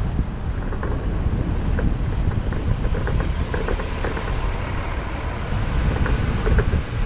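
Ford shuttle bus on the move: steady engine and road rumble with scattered small rattles and clicks.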